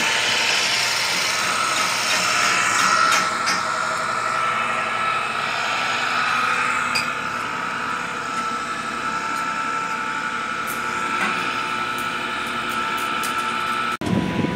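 Electric pipe threading machine running steadily with a whine while threading a black steel pipe, cutting oil being applied at the die head. The sound cuts off abruptly near the end.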